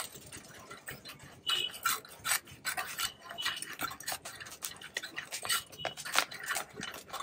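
Chickpeas being roasted in a clay hearth pot, stirred with a flat scoop on a wooden handle: repeated rasping scrapes of the scoop against the pot, with the chickpeas rattling, about one or two strokes a second.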